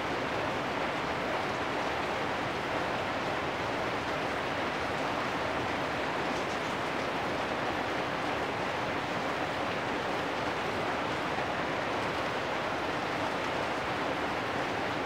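Steady rain falling on corrugated metal roofs: an even, unbroken hiss with no separate drops or knocks standing out.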